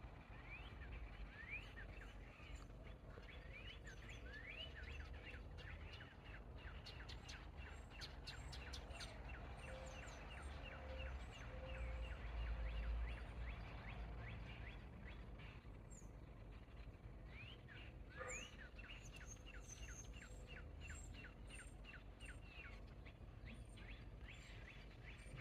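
Birds chirping: many short, quick calls overlapping, some much higher-pitched than the rest, over a low rumble that swells about halfway through.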